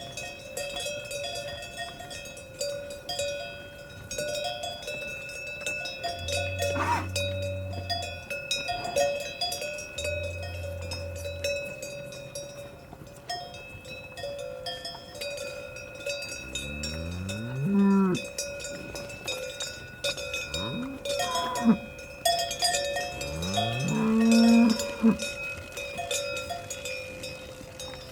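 Cowbells on a herd of cattle clank and ring continuously as the cows move. Cows low several times: two low moos about six and ten seconds in, then three rising moos in the second half, the last the loudest.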